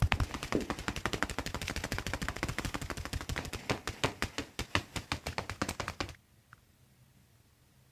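Rapid percussive massage on the body: a fast, even run of strikes that stops abruptly about six seconds in.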